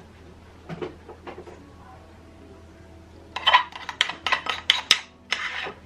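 Metal spoon scraping and clinking against a ceramic bowl while scooping out thick whipped coffee. About three seconds in comes a quick run of sharp clinks and scrapes, ending in one longer scrape.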